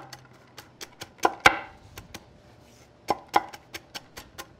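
Bench scraper chopping pecans on a wooden butcher block: a run of sharp, uneven chops. The loudest come in pairs about a second and a half in and again around three seconds, with a quieter lull between.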